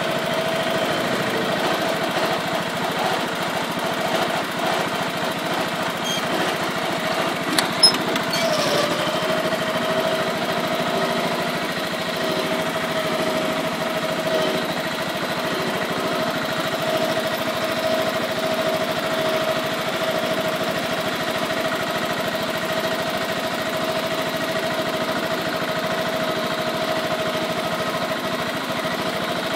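Allis-Chalmers 700-series garden tractor engine running steadily with a steady whine over the engine note, while the tractor drives and works its front loader. A single sharp knock comes about eight seconds in.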